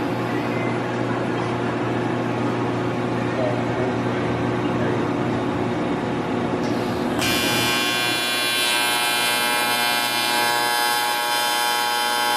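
Machine-shop machinery running: a steady hum over noise that changes suddenly, about seven seconds in, to a high, dense buzzing whine.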